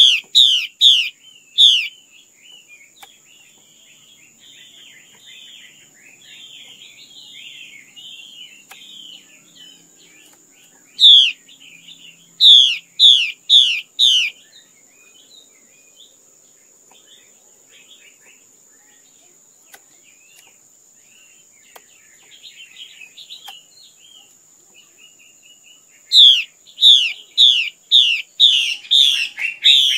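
Female Chinese hwamei calling: three groups of loud, sharp falling notes, about two a second, with softer chattering in between. A faint steady high whine runs underneath.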